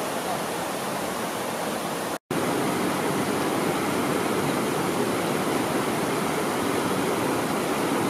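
Shallow mountain river rushing steadily over boulders and stones. The sound cuts out for a split second about two seconds in, then the rushing resumes.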